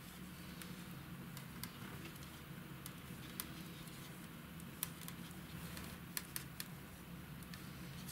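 Metal circular knitting needles giving faint, irregular ticks as stitches are purled by hand, over a low steady hum.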